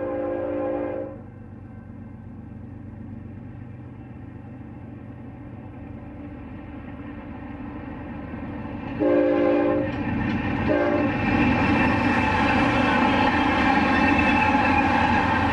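BNSF diesel locomotives leading a double-stack intermodal train, sounding their multi-note air horn until about a second in, then approaching with a slowly building engine rumble. The horn blasts again about nine seconds in, followed by a short toot. The locomotives then pass close, and the engine and rail noise turns loud and steady.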